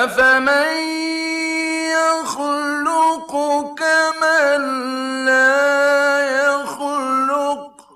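Quran recitation chanted melodically by a solo male voice: one long phrase that opens on a held note, then winds through ornamented turns in pitch before fading out near the end.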